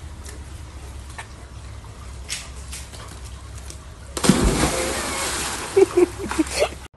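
A dog jumps into a swimming pool with a sudden loud splash about four seconds in, followed by churning water. A few short cries are heard near the end.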